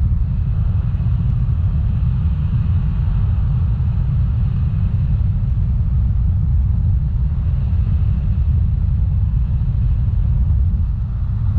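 Wind buffeting the camera microphone in paraglider flight: a loud, steady low rumble with no let-up.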